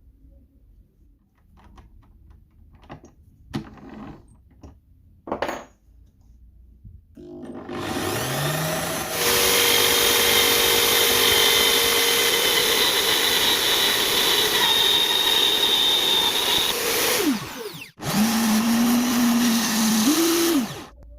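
A homemade sanding drum turned by a power drill, sanding wood. A few light knocks of handling come first; about seven seconds in the motor spins up, runs loud and steady, winds down, then runs again briefly with a whine that rises before it stops near the end.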